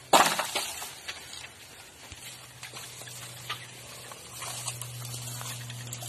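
Bamboo grass being cut by hand: one loud sharp crack of a stroke through the stems right at the start, followed by lighter scattered snaps and rustles of stalks. A faint low steady hum runs underneath.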